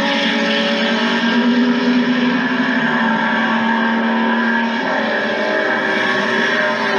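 Turismo Carretera race car engine running hard at high revs, a loud, steady engine note that rises slightly and holds, then changes pitch about five seconds in.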